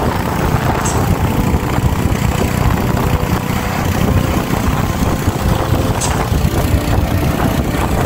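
Steady rumble of a moving vehicle: engine and road noise heard while riding along.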